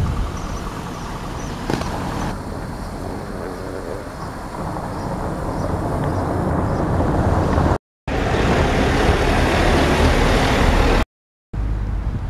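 Road traffic noise in a town street: a steady rush that swells over several seconds, like a car going by. The sound drops out to silence twice, briefly, at cuts between clips.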